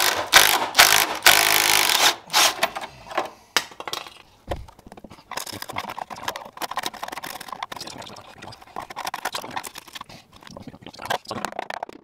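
Makita cordless impact driver hammering on a rusted nut for about two seconds, then a screwdriver tip scraping and tapping at rust-rotted sheet metal.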